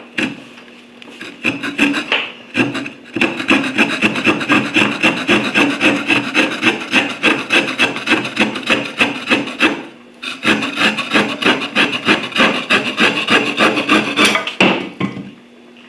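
Wood saw blade of a Victorinox Swiss Champ pocketknife cutting through wood in quick, regular rasping strokes. It stops briefly about two and a half seconds in, pauses again around ten seconds, and stops near the end.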